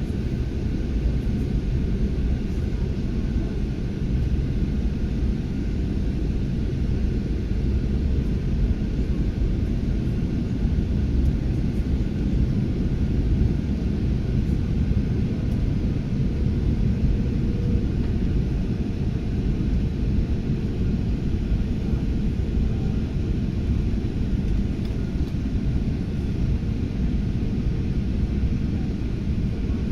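Passenger jet's engines and airflow making a steady low rumble with a faint steady hum above it, as the airliner comes in to land.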